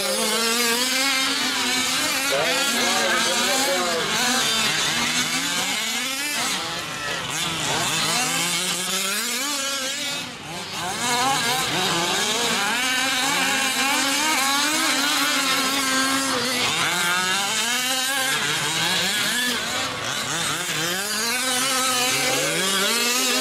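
Several 5th-scale RC off-road race trucks with small two-stroke gas engines revving up and down together, their pitches rising and falling over one another. There is a brief dip in level about ten seconds in.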